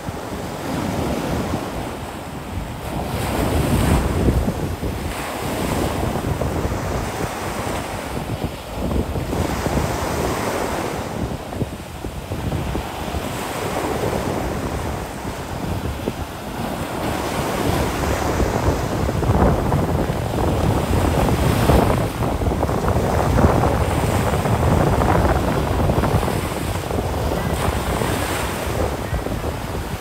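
Atlantic surf breaking and washing up the sand, swelling and easing every few seconds, with wind rumbling on the microphone.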